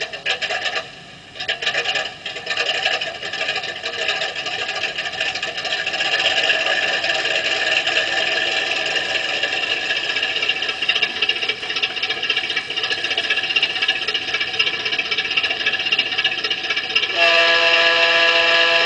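Zimo sound decoder in a Bachmann Davenport garden-scale locomotive playing its engine sound through the model's speaker. It clatters in the first couple of seconds, then runs steadily, building a little about six seconds in as the loco starts to move. Near the end a horn blast of about a second and a half sounds.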